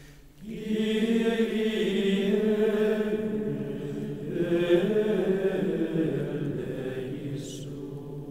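Soundtrack music of sustained, chant-like choral voices, swelling in about half a second in and slowly fading in the last couple of seconds.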